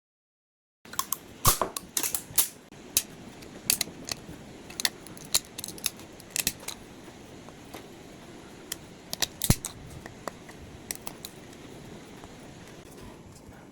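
Irregular sharp clicks and clacks of hard objects being handled, scattered throughout, with the loudest a little over a second in and again about two-thirds of the way through.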